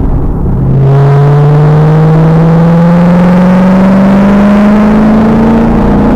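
2000 Pontiac Trans Am Firehawk's 5.7-litre LS1 V8 under full throttle. After a low rumble, it pulls hard from about a second in, its pitch climbing steadily for about five seconds. Heard from a rear-mounted camera, the sound is harsh and overloaded.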